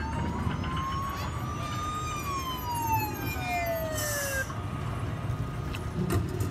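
Emergency-vehicle siren sound effect from a push-button miniature display: a single wail that rises for about two seconds, then falls and stops about four and a half seconds in.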